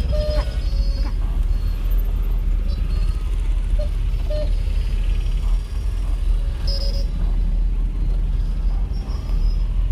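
Steady low engine and road rumble heard inside the cabin of a Suzuki car driving slowly through town traffic, with a few short high tones now and then.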